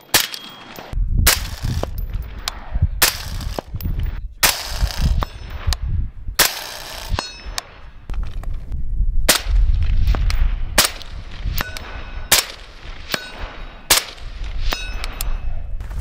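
Suppressed PRI Mk12 rifle with an 18-inch barrel and Allen Engineering suppressor firing 77-grain match rounds: many sharp shots at uneven intervals, mixed with the ringing clang of steel targets being hit at about 300 yards.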